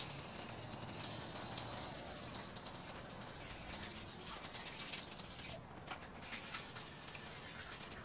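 Hand wet-sanding an alloy wheel with 400-grit sandpaper: quiet scratchy rasping strokes, with a cluster of short scrapes about five seconds in.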